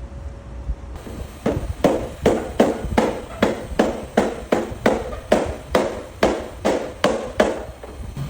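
Paintless dent repair tapping on an aluminum tailgate: a knockdown hammer strikes a tap-down tool in a steady run of short, even taps, about two and a half a second, starting about a second in. Tapping down high spots is a stage of the dent repair.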